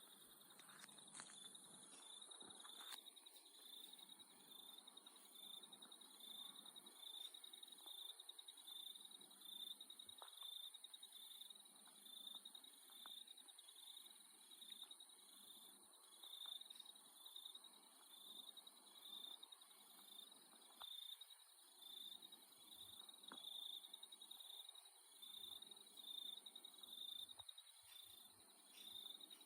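Faint chorus of Australian night insects: several high-pitched trills overlap without a break, one of them pulsing rapidly and evenly, the others higher and steadier.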